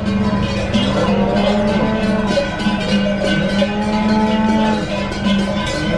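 Many cowbells clanking and ringing at once, hung on a herd of cattle crowding the road, with overlapping strikes and ringing tones.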